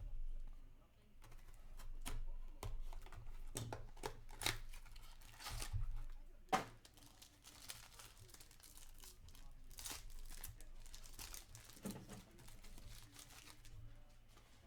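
Foil wrapper of a hockey card pack being torn open and crinkled by hand, with irregular crackling and rustling as the cards are pulled out.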